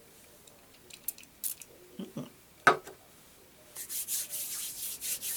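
A few small clicks and knocks from handling a pump hand-spray bottle, then, from a little before the end, a pulsing hiss of hands rubbing together, spreading the quick-drying alcohol cleansing hand spray.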